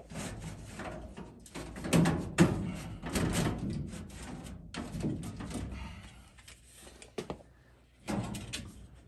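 Galvanized sheet-metal S-clip strips being slid and pressed onto the edge of a sheet-metal supply duct: irregular scraping and metal-on-metal knocks, the two loudest about two seconds in.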